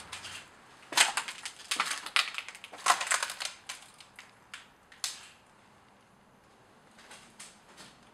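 Footsteps crunching over debris on a floor: a run of sharp crunches and clicks that stops about five seconds in.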